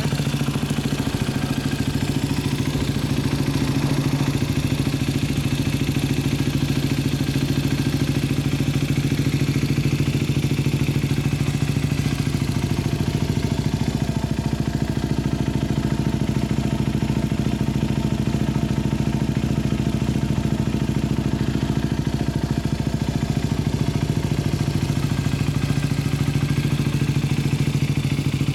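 Yamaha WR250X's single-cylinder four-stroke engine idling steadily through an FMF Q4 slip-on muffler, fairly loud.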